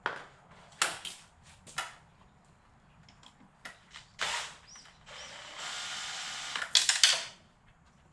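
Air-conditioner parts being handled and pulled at while the unit is taken apart: sharp plastic clicks and knocks every second or so, then a scraping rattle about a second long that ends in a couple of loud clicks.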